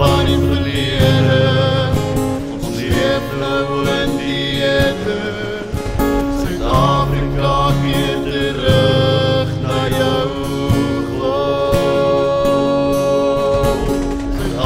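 Gospel song: acoustic guitar with singing voices.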